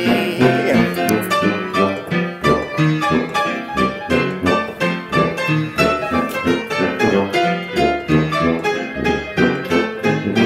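Stride-style jazz piano playing an instrumental chorus of an old New Orleans tune in a steady bouncing beat, over a tuba bass line.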